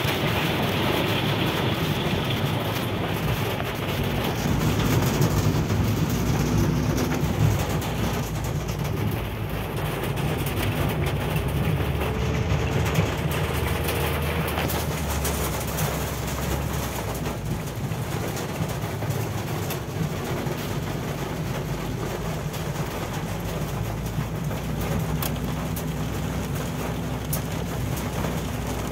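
Car driving on wet, slushy hail-covered road, heard from inside the cabin: steady engine and tyre noise with tyres swishing through water and slush, and rain on the windscreen.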